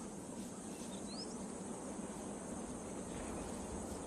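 Dry-season savanna ambience: a steady, high-pitched insect chorus over even low background noise, with one short rising bird chirp about a second in.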